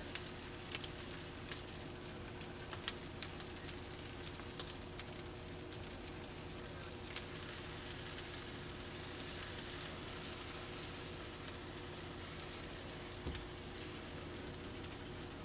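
Beaten egg and a thin layer of meat mixture sizzling steadily on a hot buttered griddle, with frequent small pops and crackles. A faint steady hum runs underneath.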